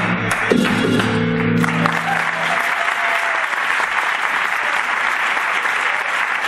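A flamenco guitar rings out its final strummed chord closing the tientos-tangos, fading within the first couple of seconds. The audience breaks into steady applause that carries on after it.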